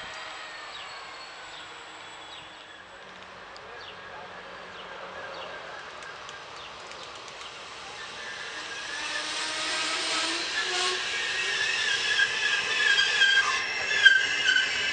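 Double-deck electric passenger train coming in along the platform, its wheels squealing in several high steady tones. The sound grows louder from about halfway through as the train draws alongside.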